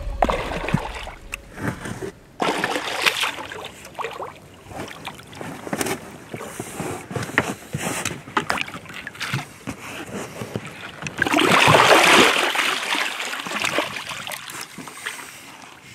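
Water splashing and sloshing as a large wels catfish is brought alongside a boat and hand-landed by the jaw, with many short irregular splashes and a louder stretch of heavy splashing about three-quarters of the way through.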